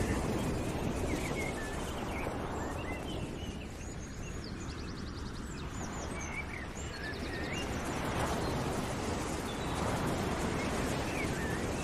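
Outdoor ambience: small birds chirping, with a couple of quick trills, over a steady rushing noise that swells and eases.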